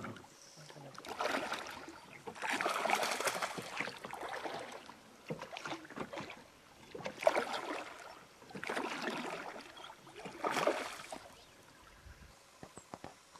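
Water splashing and swishing close to an inflatable boat, in a series of short bursts every second or two.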